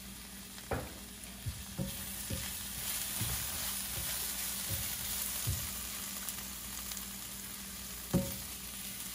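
Sliced onions and bell peppers sizzling in a nonstick skillet with a steady hiss, stirred with a silicone spatula that taps against the pan several times; the loudest tap comes near the end.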